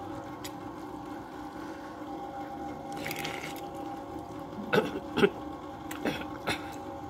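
A person slurping and eating a mouthful of rice noodles (khanom jeen): a short slurp about three seconds in, then a few sharp smacking clicks of eating and utensils, the loudest two close together a little after the slurp, over a faint steady hum.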